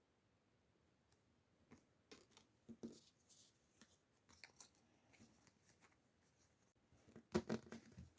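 Faint, scattered clicks and short rustles of small packaging being handled and opened, growing into a denser run of louder clicks near the end.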